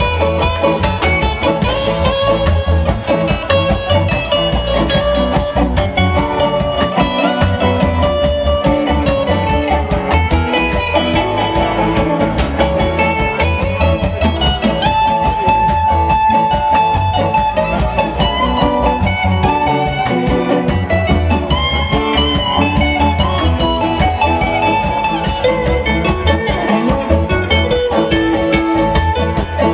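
Live reggae band playing with a steady beat: electric bass guitar, electric guitar and a twelve-string acoustic-electric guitar.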